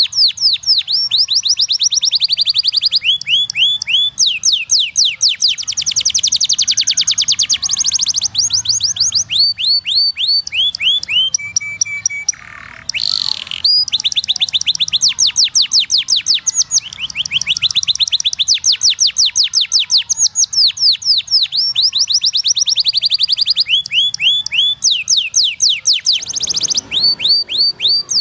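Domestic canary singing a long song of trills: fast runs of repeated falling notes that change speed from one run to the next, with a short break about halfway through.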